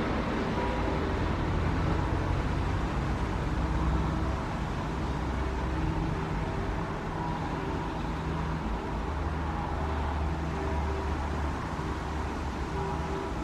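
Auer LS10 electric siren, which has a damaged bearing, running down after its test: the slowing rotor gives low tones that fade in and out over a steady rushing noise.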